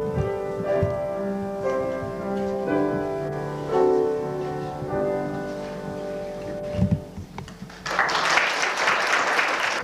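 Piano music with sustained notes, which gives way about eight seconds in to an audience clapping.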